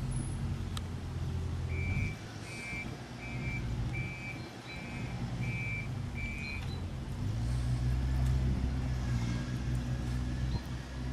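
A low engine rumble runs throughout and grows louder about two-thirds of the way in. Near the start it is joined by seven short beeps, about one and a half a second, like a vehicle's reversing alarm.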